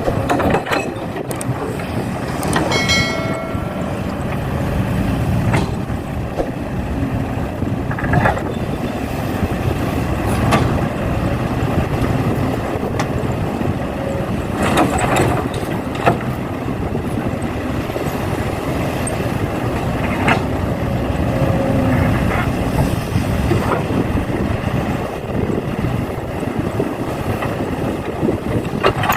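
Steady engine rumble of a heavy-equipment vehicle, with scattered short knocks and clatters. A brief pitched tone sounds about three seconds in.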